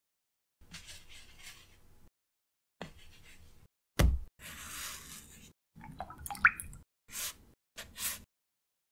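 Watercolour painting sounds: a string of short brush swishes and scrapes on paper, with small taps and a drip-like plop, each snippet cut off into silence. A sharp knock about four seconds in is the loudest.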